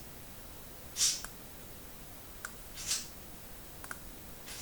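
A few faint computer-mouse clicks in a quiet small room, with two short hissy puffs, about a second in and again near three seconds.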